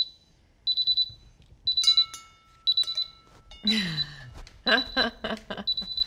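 Handheld personal carbon monoxide monitor alarming as it is bump-tested with 200 ppm bottled CO gas: short clusters of rapid, high-pitched beeps about once a second, screaming. A clink with a short ring sounds about two seconds in.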